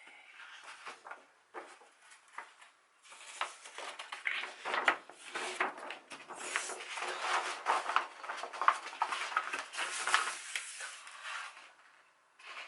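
Crackly rustling and clicking of album packaging being handled: paper and plastic pieces crinkling and tapping. It is sparse at first, then dense and continuous from about three seconds in until near the end.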